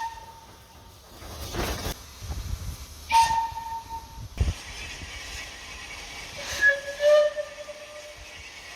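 Railway locomotive warning blasts: a short single-note blast about three seconds in, then a longer blast of several notes sounding together about six and a half seconds in, over a steady hiss.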